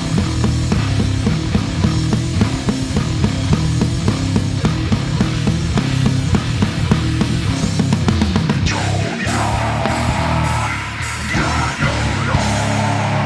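Heavy instrumental rock from a bass-and-drums duo: bass guitar through effects under fast, steady drumming. About eight and a half seconds in, the beat drops away into a swelling effects passage with a few crashes, then sustained bass notes.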